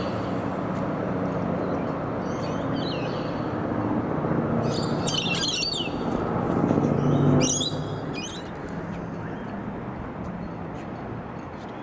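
Birds chirping in short bursts over a steady low rumble of passing traffic. The rumble swells to its loudest about seven seconds in, then drops off.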